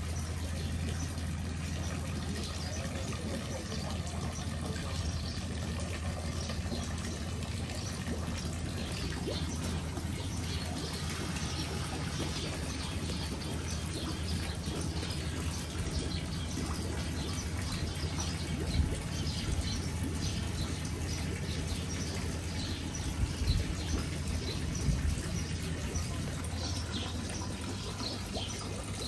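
Water trickling and splashing steadily into a koi pond from inlet pipes, over a steady low hum. There are a few dull thumps in the second half.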